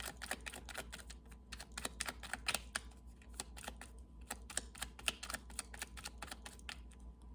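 Tarot cards being handled on a table, a quick, uneven run of light clicks and taps.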